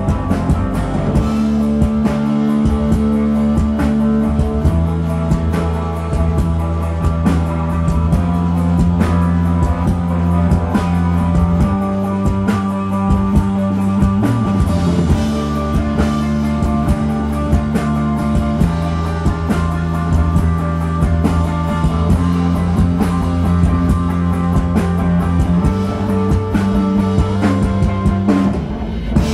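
Live rock band playing: distorted electric guitar and bass guitar holding long heavy chords over a steady drum-kit beat, the bass note changing every few seconds, with a brief drop just before the end.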